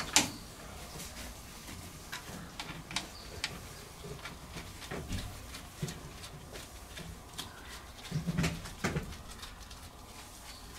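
Light, irregular metallic clicks and taps of hand tools and fittings as the low-pressure crosshead wrist pin bearing of a stopped compound marine steam engine is worked on. A louder low sound comes twice, about eight seconds in.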